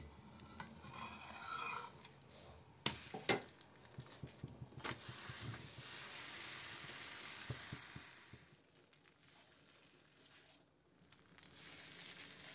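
Thin pumpkin crepe batter sizzling in a hot nonstick frying pan, with a few sharp clicks and knocks about three to five seconds in. The sizzle dies down about eight seconds in.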